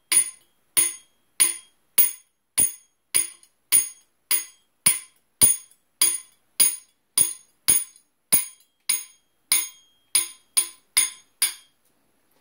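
A 3-pound hammer tapping the back of an AR-15's pinned front sight base, steel on steel, about twenty even blows a little under two a second, each with a short metallic ring, quickening slightly near the end. The blows are driving the sight base forward off the barrel after its taper pins have been removed.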